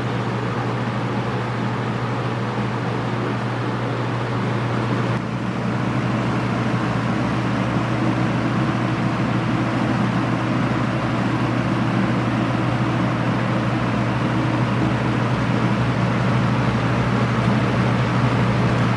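Early-1980s Torcan 50 cm box fan running, its five plastic blades making a steady rush of air over a low motor hum. About five seconds in the sound shifts briefly, then grows gradually louder, as when the fan is switched up a speed and spins up.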